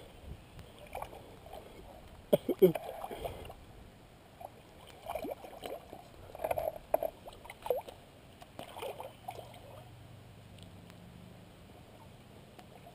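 Water splashing and sloshing in short, irregular bursts as a hooked northern pike thrashes at the surface beside a concrete wall, fading out over the last few seconds.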